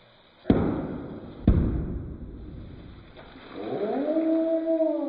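Two sharp pops about a second apart: a zip-top plastic bag bursting open under carbon dioxide pressure from a baking soda and vinegar reaction, each followed by a brief hiss that fades. Near the end comes a long drawn-out vocal sound that rises, holds and falls.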